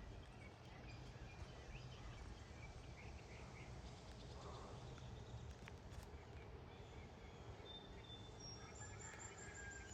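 Faint outdoor ambience of a steady low background hiss with distant birds chirping and whistling; a few clearer short whistled notes and quick chirp series come in over the last few seconds.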